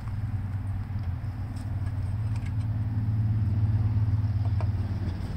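Low, steady rumble of an engine running off-scene, growing louder about three seconds in, with a few faint clicks as parts are handled on the mower's engine.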